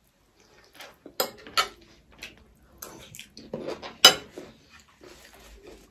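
Metal spoons clinking and scraping on ceramic plates during a meal, with a few sharp clinks, the loudest about four seconds in.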